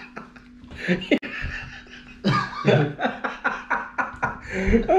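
Men laughing hard in repeated bursts of short laughs.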